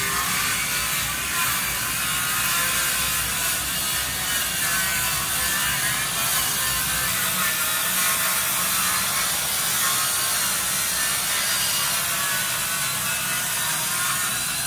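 Oscillating multi-tool cutting through a boat's fiberglass transom: a steady, high-pitched buzzing rasp with no pauses.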